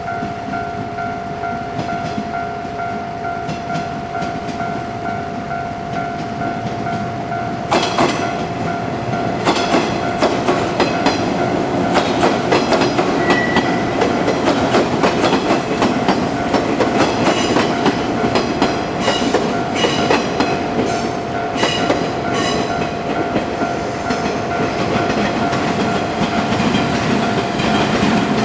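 A train passing over a level crossing, its wheels clattering over the rail joints in a rapid, continuous run of clicks from about eight seconds in. A steady warning tone from the crossing rings throughout.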